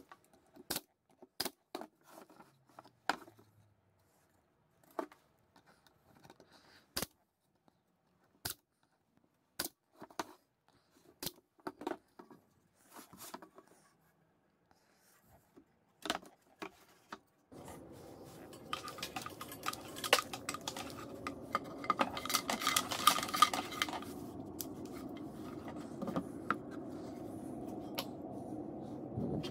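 Sharp clicks and knocks of tools and wood being handled on a workbench, spaced a second or more apart. About two-thirds of the way in, a steady low hum comes up, with a quick flurry of metallic clinks over it.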